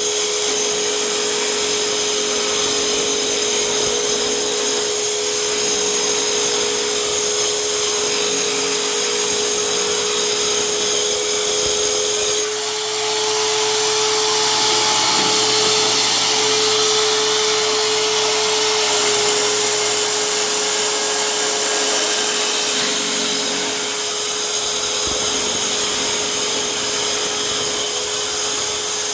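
Hyper Tough mini circular saw running, its motor giving a steady whine. For about six seconds in the middle the sound turns slightly quieter and changes character, then returns.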